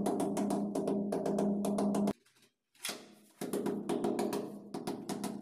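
Rubber mallet tapping ceramic wall tiles to bed them into the adhesive: quick, irregular knocks over a steady hum. The sound stops about two seconds in and starts again a second or so later.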